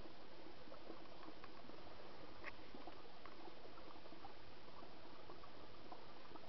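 Faint trickle of water running beneath the ice of a frozen stream: a quiet, steady hiss dotted with many small ticks and drips.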